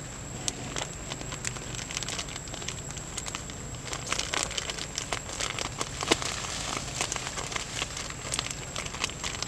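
Irregular crackling and rustling of dry leaf litter and twigs as macaques move about on a forest path, the clicks coming thicker in the second half. A faint steady high-pitched tone runs underneath.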